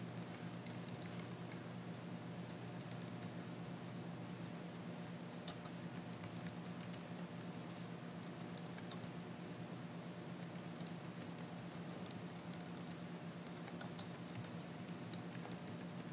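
Typing on a computer keyboard: slow, uneven key clicks in small clusters with short pauses, over a low steady hum.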